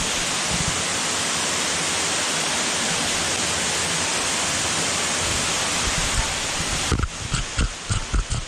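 Waterfall spilling from a cave opening in a rock bluff, a steady full rush of falling water. About seven seconds in the rush dims and irregular low bumps and knocks of the camera being handled and moved come through.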